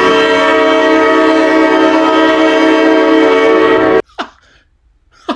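The last ground siren at AAMI Stadium (Football Park): a loud, steady chord of several tones sounding together, held for about four seconds with no change in pitch, then cut off suddenly.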